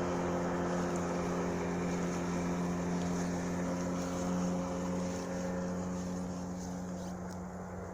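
Sea Pro 9.9 two-stroke outboard motor running at a steady speed, getting slightly quieter toward the end.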